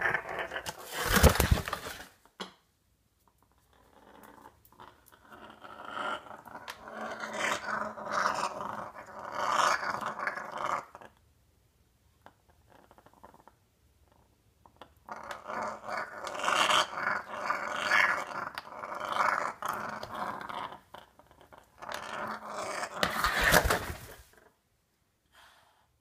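African grey parrot growling: long rasping bouts with a pause in the middle, and two short, louder harsh bursts, one near the start and one near the end. It is a defensive threat growl, the kind African greys use to ward off predators.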